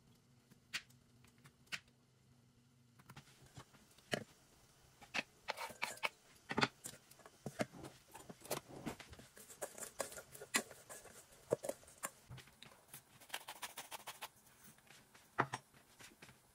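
Kitchen handling sounds: scattered sharp clicks, taps and light knocks of utensils and dishes against a stainless steel mixing bowl and a frying pan, busiest through the middle.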